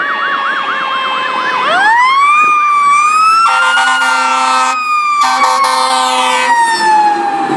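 Fire engine sirens: a fast warbling yelp, then a siren winding up from low to high and slowly falling away. Two long horn blasts sound over it, about three and a half and five seconds in.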